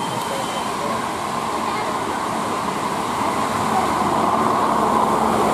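A heavy tour bus's engine and road noise, a steady rumble growing gradually louder as the bus approaches.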